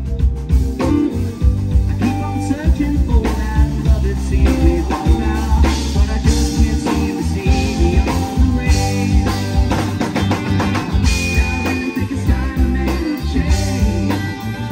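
Rock band playing live: drum kit, two electric guitars and keyboard in a loud, dense psychedelic-rock jam.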